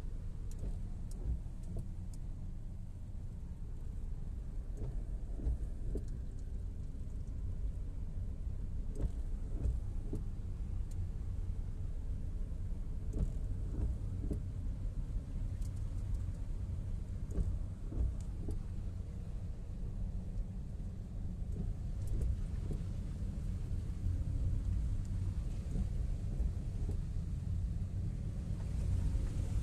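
Steady low rumble inside a car cabin as it drives through rain along a flooded road, with scattered faint ticks of raindrops on the windscreen.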